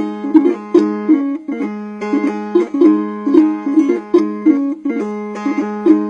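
Instrumental music: a plucked string instrument playing a quick repeating figure of sharply struck notes over a steady low drone.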